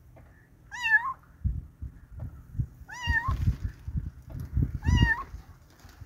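A young tabby kitten meowing three times, about two seconds apart: short, high-pitched calls that rise, dip and rise again. Low, muffled rumbles come and go beneath and between the calls.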